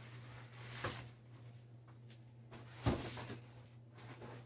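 A large cardboard shipping box being handled and set down on the floor: a light knock about a second in, then a heavier thump about three seconds in, with cardboard rustling around them.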